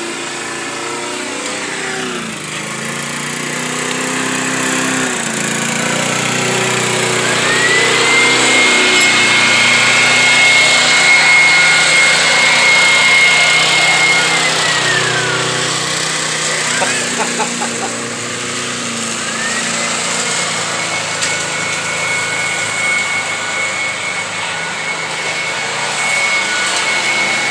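Corded electric leaf blower running, its fan whine climbing to a high steady pitch about seven seconds in, dropping away around fifteen seconds, then climbing again around twenty seconds.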